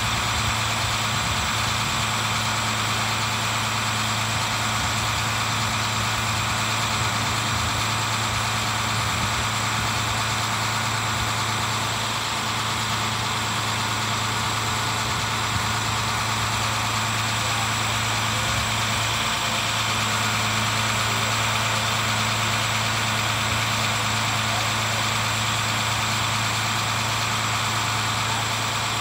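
2009 International 7400's 9.3-litre six-cylinder diesel engine idling steadily, keeping the hydraulics running while the Altec aerial boom is operated. The engine gives an even, unchanging hum.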